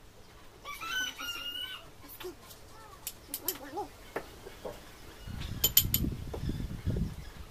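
A rooster crows once, about a second in, followed by a few short clucks. Near the end, a spoon clinks against a bowl over low handling rumble.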